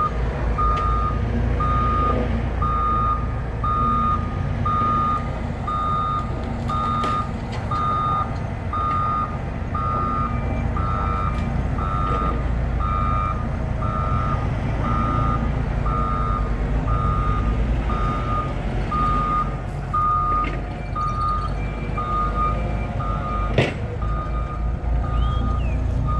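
Heavy construction machine reversing: its back-up alarm beeps in a steady, regular series over the low, steady rumble of its diesel engine. A single sharp knock sounds near the end.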